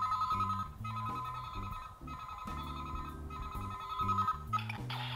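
Electronic phone-style ringing tone from the DX K-Touch 21 toy's speaker: a fast trill flicking between two close pitches, broken by a few short pauses, stopping a little before the end. Low bass notes of music play underneath.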